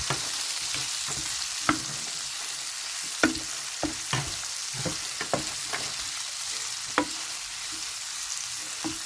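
Beef, vegetables and spices sizzling in a pan while being stirred: a steady frying hiss with a spoon knocking and scraping against the pan about a dozen times at uneven intervals.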